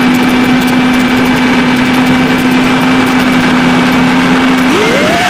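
FPV quadcopter's brushless motors spinning HQProp 5x4x6 six-blade propellers at idle with a steady hum, then rising sharply in pitch near the end as the throttle comes up for takeoff.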